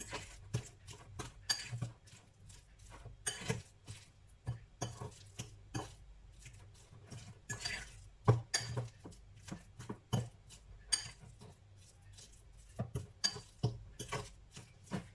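Metal fork clinking and scraping against a glass bowl as cooked purple sweet potato is mashed, in irregular taps with a few sharper strikes.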